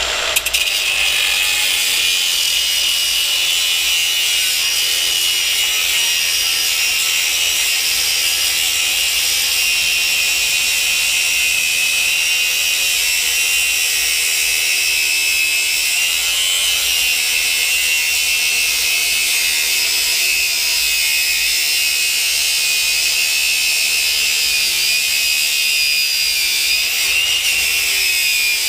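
Electric cutting tool with a spinning wheel, cutting through copper: a loud high whine that rises and dips a little with the load.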